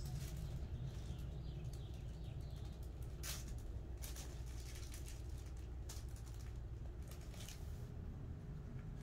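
Faint, scattered short taps and rustles from kittens scampering and pawing about at play, a few of them sharper, over a steady low hum.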